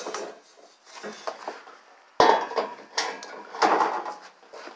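Clanks, rattles and knocks of a large steel crosscut saw blade being handled and set down, the loudest a sudden sharp knock about two seconds in.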